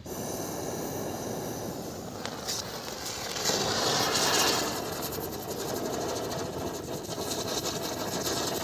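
A chakri ground-spinner firework, lit with a butane torch, burning with a steady hissing rush of sparks that grows louder about three and a half seconds in as it catches fully.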